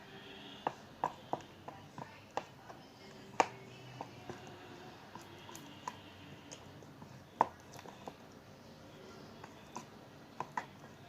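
Irregular sharp clicks and taps, about a dozen scattered at uneven intervals, from slime being stirred in a bowl, the utensil knocking against the bowl.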